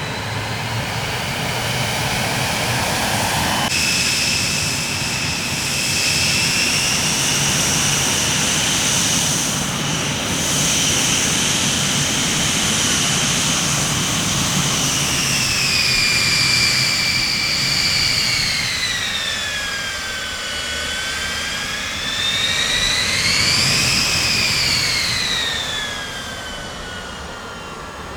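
Jet airplane engines running with a steady rush and a high whine that holds, sinks in pitch about two-thirds of the way through, then rises and falls again near the end.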